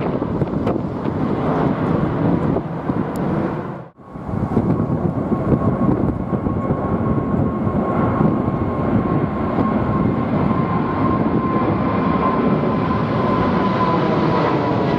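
Jet airliners climbing out overhead at takeoff power. First a Boeing 787-9, then, after an abrupt cut about four seconds in, a Boeing 777-300ER's GE90-115B turbofans. The 777's roar carries a steady whine that slowly falls in pitch as it passes.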